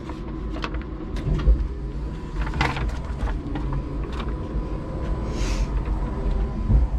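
Electric forklift heard from inside its cab: a steady low hum with scattered clicks and knocks, and a short hiss about five and a half seconds in.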